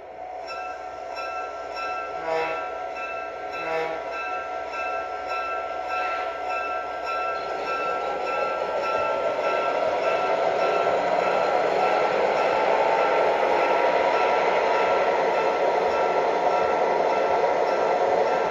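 O scale Great Northern F-3/F-7 diesel model passenger train running slowly. A ringing tone pulses about twice a second, with two short toots a couple of seconds in. From about eight seconds a whine rises in pitch and the sound grows louder as the train speeds up.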